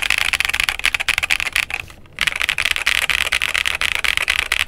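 Fast typing on a Monsgeek M3W aluminium tenkeyless mechanical keyboard with Akko switches: a dense run of key clacks, free of ping, that breaks off briefly a little under two seconds in and then carries on.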